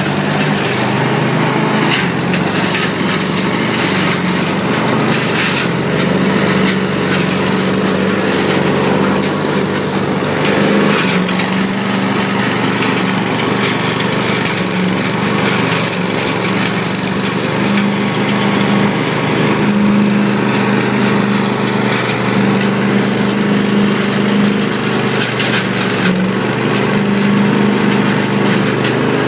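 Truck-mounted Giant-Vac leaf loader's engine running steadily at working speed while its hose sucks up dry leaves, with a constant crackling rattle of leaves and debris going through the hose and fan.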